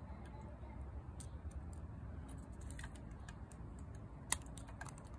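Small clicks and taps from a First Gear toy garbage truck's side-loader arm and little plastic trash cans being handled by hand, with one sharper click about four seconds in.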